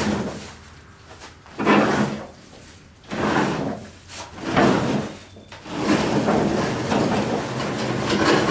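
A heavy object being shoved and slid across the shop floor, scraping in three short pushes and then in one longer continuous drag from about six seconds in.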